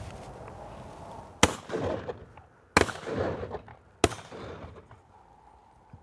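Three shotgun shots fired at ducks in flight, about a second and a quarter apart, each with an echo trailing off after it.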